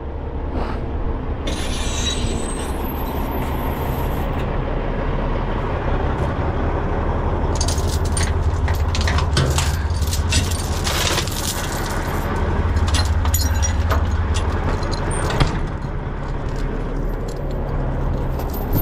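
Heavy steel recovery chains clanking and rattling for several seconds in the middle as they are pulled from a tow truck's chain rack, over the steady low running of the truck's diesel engine.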